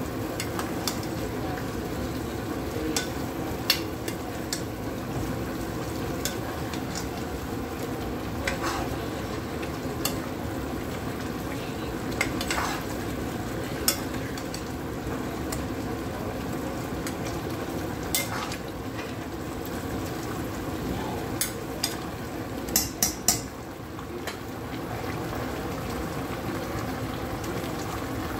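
A metal spoon stirring mango pieces in a pot of bubbling, sugary mango talkari on high heat, scraping and clinking against the pot every second or two over the steady sizzle of the cooking. A quick run of clinks comes about three-quarters of the way through.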